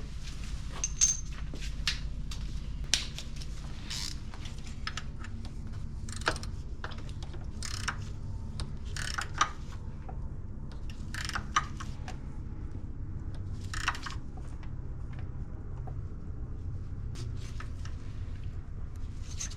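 Ratchet wrench clicking in short bursts with light metallic knocks as the new hydraulic drive-belt tensioner is bolted down, over a steady low hum.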